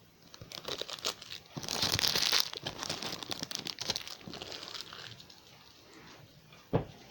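Plastic packaging crinkling and rustling as wrapped parts are handled and unwrapped, with a louder burst of crackling about two seconds in and a single sharp click near the end.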